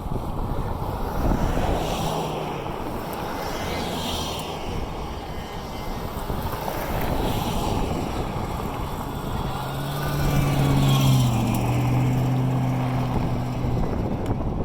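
Strong wind buffeting the microphone in gusts. A steady low hum, like a vehicle engine, comes in about two thirds of the way through and lasts several seconds.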